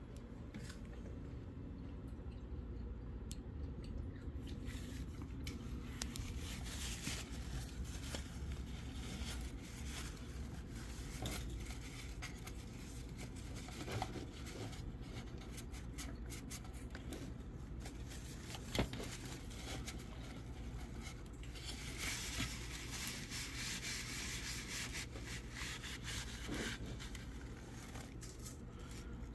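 Handling noises: rubbing and scraping with scattered small clicks, over a steady low hum, with a stretch of brighter hiss-like rubbing near the end.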